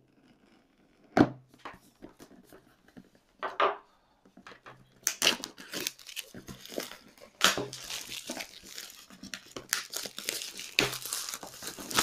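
Clear plastic wrapping being torn and peeled off a cardboard box, crinkling continuously from about five seconds in. Before that, a few scattered clicks and scrapes as a screwdriver works at the box's seal.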